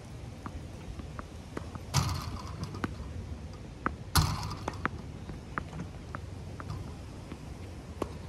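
Tennis balls being hit on a court: two sharp hits about two seconds apart, the first about two seconds in, with fainter scattered ticks and taps between.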